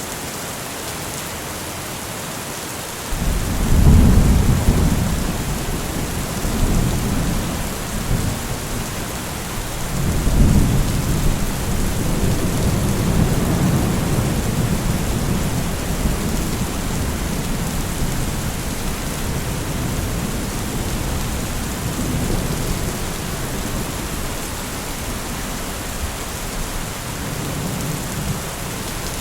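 Steady heavy rain with rolling thunder: a deep rumble swells up about three seconds in, another around ten seconds, and the low rumbling carries on under the hiss of the rain.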